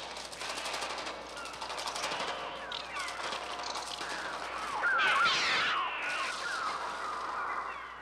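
A dense flock of birds shrieking and calling over a rapid fluttering of many wings, with a louder burst of cries about five seconds in.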